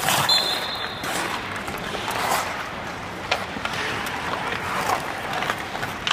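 Hockey skates scraping and carving across the ice with sticks and a puck clacking, in an echoing arena. There is a short high squeal just after the start and a sharp crack about three seconds in.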